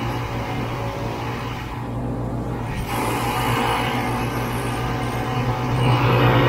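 Snowmobile engine running at speed, a steady drone with a rushing noise over it that swells louder near the end.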